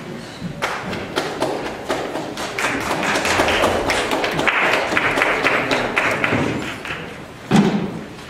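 A congregation standing up from wooden pews: clothes rustling, feet shuffling and scattered knocks and taps that swell and die away, with one louder thump near the end.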